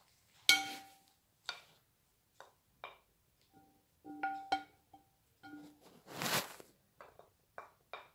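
Wooden spoon knocking and scraping against a large glass mixing bowl while stirring pasta salad: about a dozen irregular clinks, each ringing briefly at the bowl's same pitch, the loudest about half a second in. A longer scrape comes about six seconds in.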